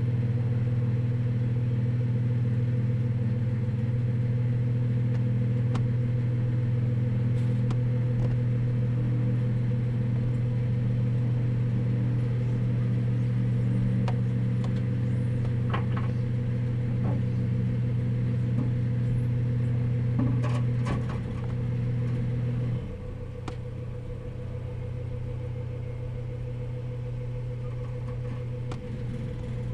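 A steady low motor hum with a few clicks and knocks; about 23 s in the hum drops to a quieter, thinner level and carries on.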